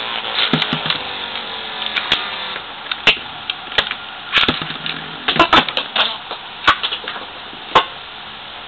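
Two Beyblade metal spinning tops, Meteo L-Drago Rush and Tornado Herculeo, whirring with a hum that slowly falls in pitch. About ten sharp clacks sound at uneven intervals as the tops collide.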